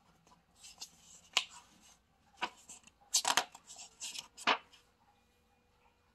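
Pages of a picture book being turned by hand: paper rustling and swishing, with several sharp paper snaps as a leaf flips over. Between about half a second and four and a half seconds in.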